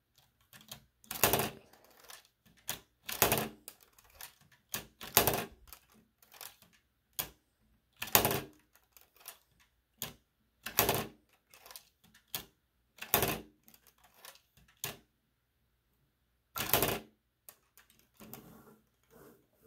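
Plastic Lego pieces of a built set clicking and clacking as the model is handled and its moving parts are worked: irregular sharp clicks, a loud one every second or two with softer ones between, and a short pause near the end.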